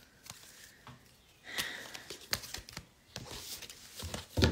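A quiet pause in a small room: a soft breath about a second and a half in, scattered small clicks and rustles, and a sharper knock near the end.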